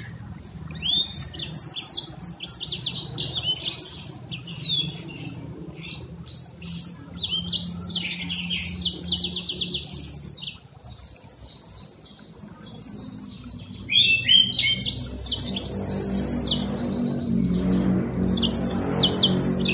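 Caged yellow-fronted canary (Mozambique canary) singing: fast, high, chattering trills in runs of a second or two, broken by short pauses. A low hum rises under the song near the end.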